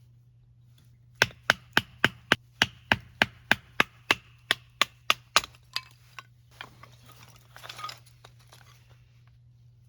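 A quick run of about seventeen even chopping strikes on wood, about three or four a second, fading toward the end, followed by a brief rustle.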